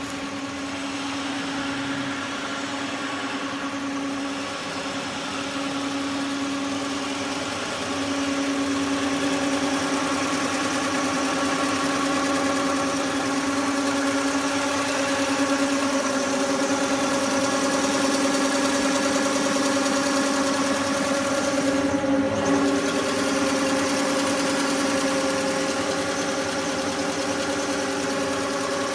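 Multi-head sleeping-bag quilting machine running, its row of sewing heads stitching through the wadding: a steady mechanical drone with a constant whine over it, a little louder after about eight seconds.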